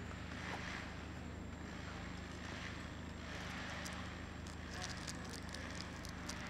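Steady outdoor background hum, low and even, with a run of faint light clicks and crackles in the second half.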